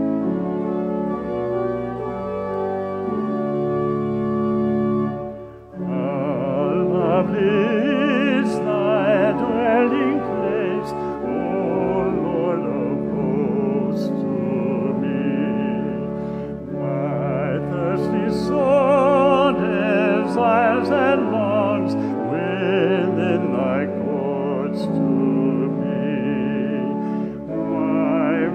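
Keyboard introduction of held chords, then about six seconds in a solo singer with strong vibrato comes in, singing phrases over the keyboard accompaniment.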